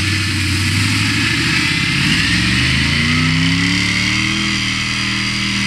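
Off-road mud truck's engine revving under load as it climbs a steep dirt bank, its pitch rising about two seconds in and holding high.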